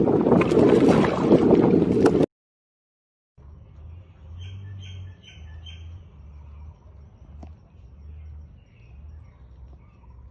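Loud rushing wind noise on the microphone for about two seconds, then it cuts off suddenly to about a second of dead silence. After that, birds chirp a few times over a faint low rumble.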